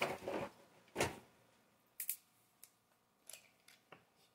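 Hands handling small model-helicopter parts and tools: a sharp click about a second in, then scattered light ticks and taps.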